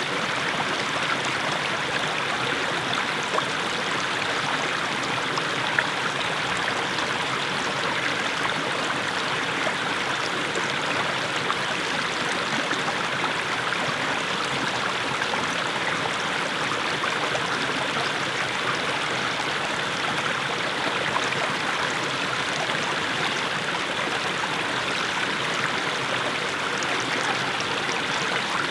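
Small mountain brook splashing over low steps of mossy stones: a steady, even rush of water flecked with small splashes.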